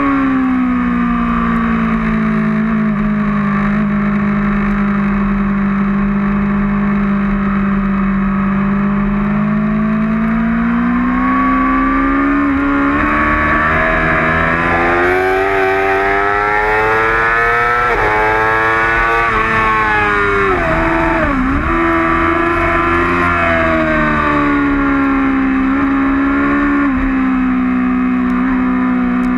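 2008 Yamaha R6's inline-four engine at racing speed, heard from on board the bike. It holds a steady pitch for the first ten seconds or so, climbs and wavers with throttle changes, dips sharply about twenty-one seconds in, then climbs and holds again.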